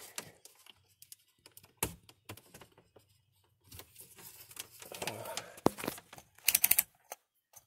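Handling noise: scattered light clicks and rustles as multimeter test leads are worked around a battery terminal, with a quick run of clicks near the end.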